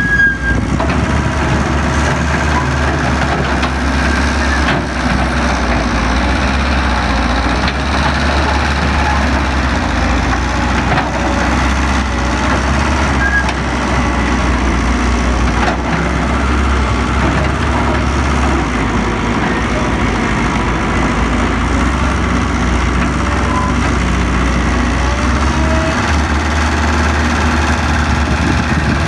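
Heavy diesel engine of an excavator or dump truck running steadily at a constant low drone, with no marked revving.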